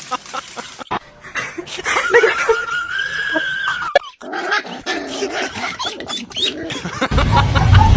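A dog vocalising, with one long high whine from about two seconds in that drops off sharply about two seconds later, among shorter whines and yips. A loud low rumble comes in near the end.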